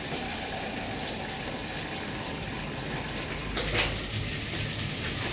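Water hissing steadily from a hand pump sprayer, wetting the PS board under a lifted vinyl sticker so the vinyl can be slid back into line. The spray gets louder and sharper about three and a half seconds in.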